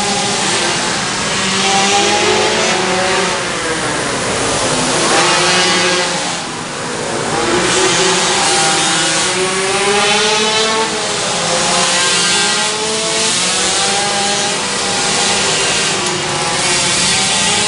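Small racing engines revving up and down as machines lap a track, their pitch rising and falling every couple of seconds, with several engines overlapping.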